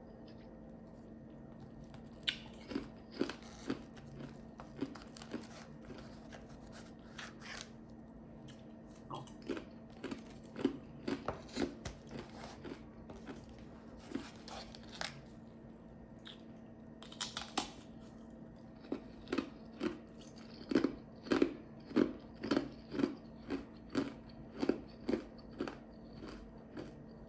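Ice chips being crunched between the teeth, sharp crunches coming in irregular runs of chewing. Near the end the chewing settles into a steadier run of about two crunches a second.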